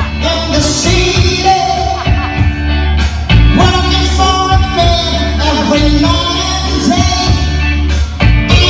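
Loud pop music with singing over a steady bass beat, played through a stage show's sound system.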